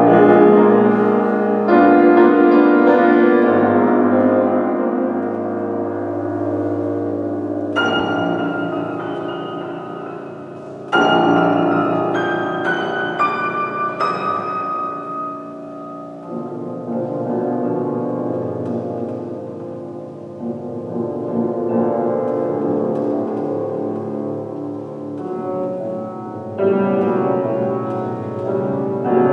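Grand piano played solo: loud chords with low notes, sharp high notes struck about eight seconds in and again around eleven to fourteen seconds, then quieter sustained passages before another loud chord near the end.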